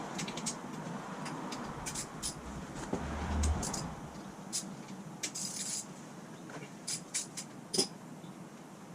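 Metal tools and parts clinking and tapping: a dozen or so sharp, irregular metallic clicks, with a brief low rumble about three seconds in.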